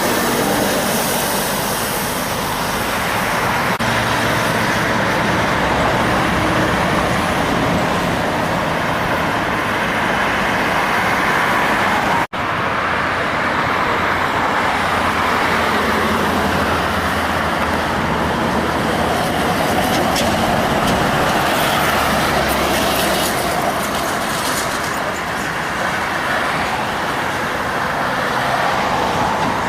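Heavy trucks and other traffic passing on a highway: diesel engines running and tyre noise in a steady, loud wash. The sound drops out for an instant about twelve seconds in.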